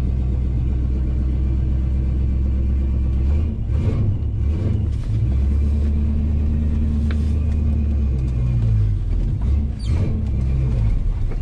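1976 Pontiac Trans Am's V8 running cold just after a cold start, heard from inside the cabin. It idles steadily at first, then from about three seconds in the engine speed rises and dips unevenly several times.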